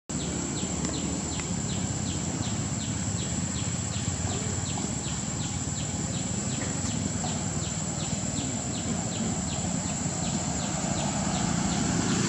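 Outdoor ambience: a steady high-pitched insect drone with a regular run of short high ticks, about four a second, that stops a little past the middle, over a low background rumble.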